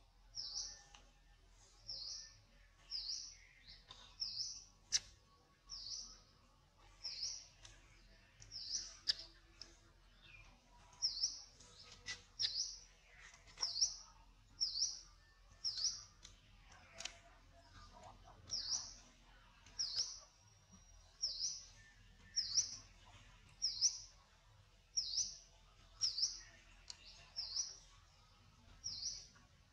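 A bird calling over and over, one short high chirp about once a second.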